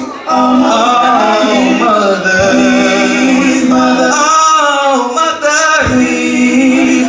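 Live soul music: a male singer's voice sliding through sustained, bending notes over a steady held backing note from the band.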